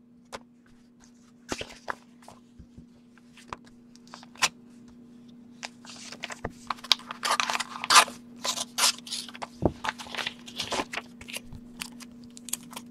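Paper envelope being slit open with a letter opener: a run of short scraping rasps about halfway through, among light clicks and rustles of cards and paper being handled.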